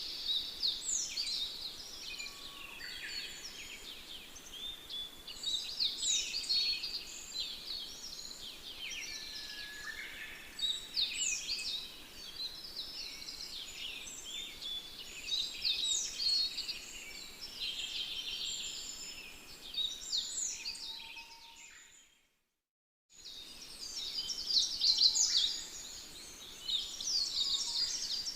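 Many birds chirping and calling at once, a dense chorus of short, quick high chirps over a faint background hiss. The sound cuts out completely for about a second near the end, then the chorus resumes.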